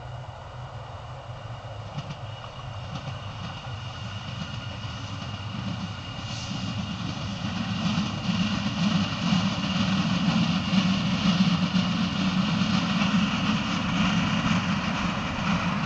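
DB Class 628 diesel multiple unit approaching and passing, its underfloor diesel engine running with a low drone. The drone grows steadily louder over the first half as the train nears, then holds at its loudest with a rushing running noise.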